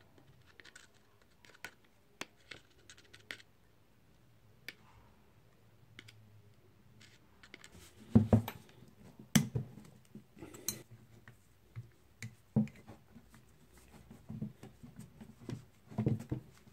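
Scattered clicks and knocks of an Ingersoll Rand air impact wrench's metal parts being handled and fitted by hand, growing louder and busier about eight seconds in. Near the end the wrench is stood upright on a wooden bench with a knock.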